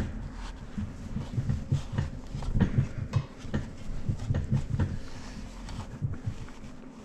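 Rag wiping degreaser and dirt off small-engine parts: irregular rubbing strokes with light knocks as the parts are handled.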